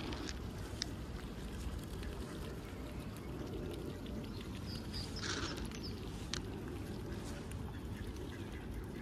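A single short waterfowl call about five seconds in, over a steady low outdoor rumble, with a few light clicks.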